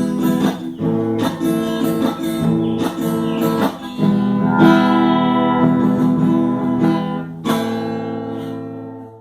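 Acoustic guitar (violão) strumming chords to close the song. A last chord is struck about seven and a half seconds in, rings on and fades out.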